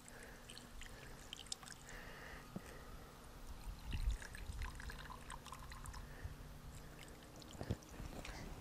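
Faint trickle of a thin stream of water from a garden-hose spray nozzle pouring onto dry granules in a glass measuring cup, then into a small glass.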